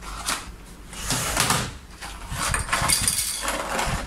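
Packaging being handled and unwrapped: rustling and crinkling of wrapping and a cardboard box in three irregular stretches, the longest near the end.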